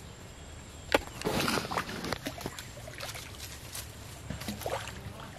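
A hooked fish splashing at the surface of a pond at the end of a fishing line: a sharp slap about a second in, then a second of splashing, and a few smaller splashes after.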